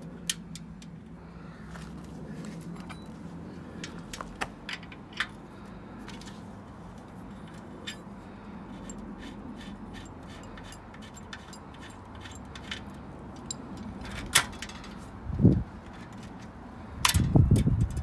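Small metallic clicks and clinks of a ring spanner working the rear axle nut of a Sturmey-Archer X-RD3 three-speed drum-brake hub. There is a sharp click about 14 seconds in and a few louder, duller knocks near the end.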